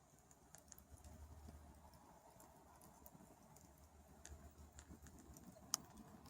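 Faint, scattered crackles and ticks from a smouldering campfire, with one sharper pop near the end.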